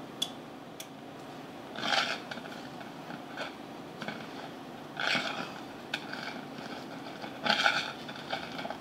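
Kitchen knife blade scraping against a metal cake pan as it is worked around a baked cake to cut it loose. Two light clicks at the start, then three louder scraping strokes a few seconds apart, with softer scrapes between.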